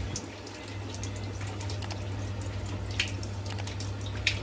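Water running into the tub of a Maytag MVWC465HW3 top-load washer during the diagnostic test's fill cycle, over a steady low hum. There are a couple of light clicks near the end.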